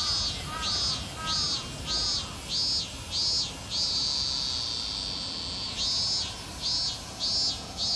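An insect calling in regular high-pitched pulses, about three every two seconds, that run together into one unbroken call for about two seconds midway and then break back into pulses. A few short falling chirps sound lower down in the first two seconds.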